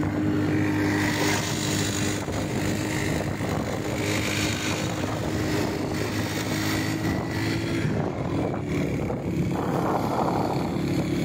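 Motorcycle engine running steadily while riding, heard from on the bike, with wind rushing over the microphone. The engine note drops lower about eight seconds in.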